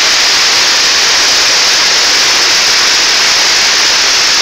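Steady, loud rushing of a river in flood, its brown water churning over the bed beside the road.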